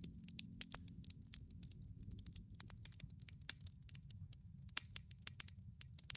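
Campfire crackling: many irregular small pops and snaps over a low, steady rumble.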